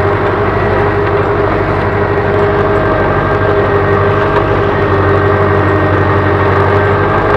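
Ursus C-4011 tractor's four-cylinder diesel engine running steadily under ploughing load, heard from inside the cab.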